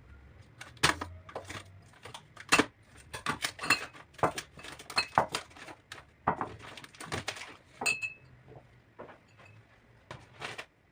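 Dishes and utensils clinking and clattering: a run of sharp knocks and clinks, a few ringing briefly like a spoon striking a cup or bowl.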